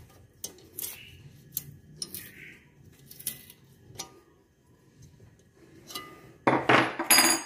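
Light metallic clinks and ticks of a hand wrench turning a bolt against a steel TV wall bracket as it is tightened, then a loud scraping rustle lasting about a second near the end.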